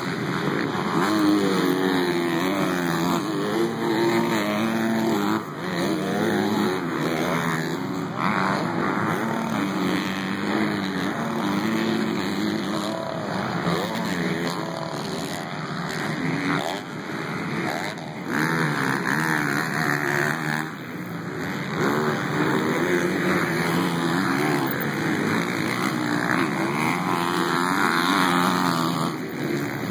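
Several motocross dirt bikes racing round a dirt track, among them a 2013 Suzuki RM-Z250 four-stroke. Engine pitch rises and falls repeatedly as the riders open the throttle, shift and back off, with several engines overlapping.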